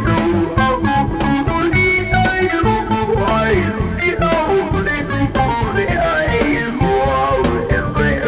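Jazz fusion quartet playing live: electric guitar, keyboards, electric bass and drums, with fast melodic runs sweeping up and down over a steady bass line and drum beat.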